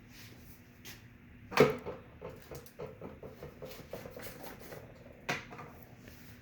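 A reagent bottle and its tubing fitting being handled and connected to a silica analyzer: a sharp knock about a second and a half in, a string of small clicks, then another knock near the end, over a faint steady hum.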